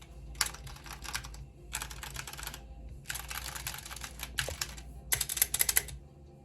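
Typing on a mechanical keyboard in bursts of rapid keystrokes separated by short pauses. The fastest and loudest burst comes near the end.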